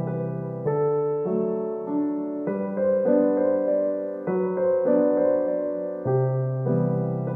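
Background piano music: a slow, gentle tune of single notes and chords, each struck note fading before the next.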